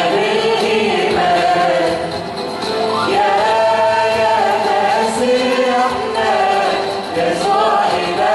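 Church choir singing an Arabic Christian hymn, with long held notes that move from phrase to phrase.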